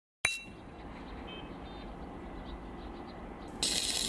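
A single sharp metallic clang with a short ringing tail, followed by a low steady background; near the end a short burst of hiss starts and stops.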